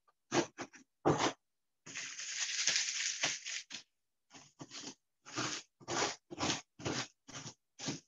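Rolling pin crushing Nutter Butter cookies inside a zip-top plastic bag: crunching with plastic crinkle in short back-and-forth strokes. There is a longer stretch of steady crunching about two seconds in, then roughly two strokes a second.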